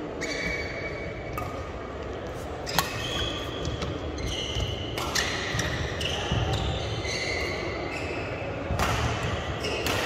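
Badminton rally on an indoor court: sharp racket strikes on the shuttlecock, several seconds apart, with many short squeaks of court shoes on the mat in between. The loudest strike comes about three seconds in.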